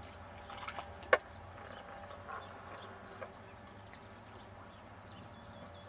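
Quiet pondside ambience: small birds chirping in the distance over a low steady hum, with one sharp click about a second in.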